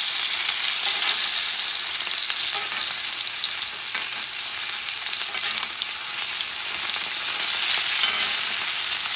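Bison tomahawk ribeye steak sizzling on a hot cast iron grill as butter and meat juices are spooned over it: a steady hiss with small crackles and spits.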